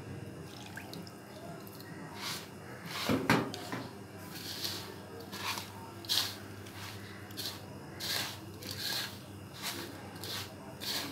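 Milk poured from a mug onto roasted semolina in a steel platter, then a hand mixing it in: short, gritty rustling scrunches, one or two a second, as the fingers rake and squeeze the damp crumbly mixture against the metal. There is a louder burst about three seconds in.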